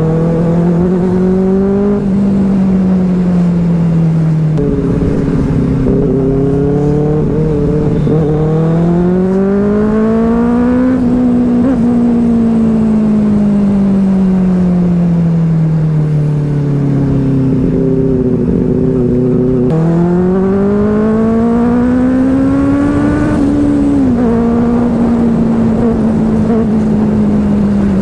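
Benelli 600i inline-four motorcycle engine under way. Its pitch climbs under throttle and drops sharply at gear changes, about two seconds in and again near the end. In the middle it falls slowly for several seconds as the bike slows, then rises again.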